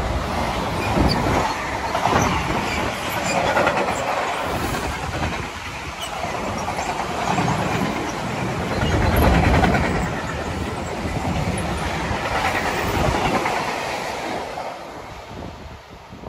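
Freight train wagons rolling past at speed on the adjacent track: a loud, steady noise of wheels on rail that fades near the end as the last tank wagons pull away.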